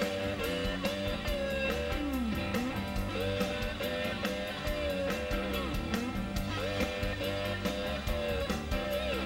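Live blues band playing an instrumental guitar break: an electric guitar lead with notes that glide and bend in pitch over a steady drum beat with regular cymbal ticks and bass.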